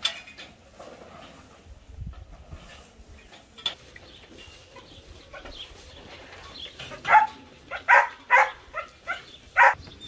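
Farm animal calls: a quick run of about eight short, loud cries in the last three seconds, after a quiet stretch.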